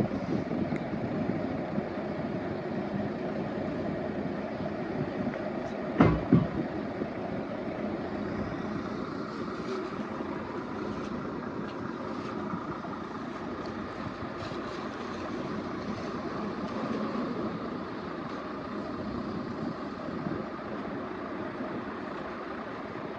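Steady rumble of a running vehicle, with a sharp double knock about six seconds in.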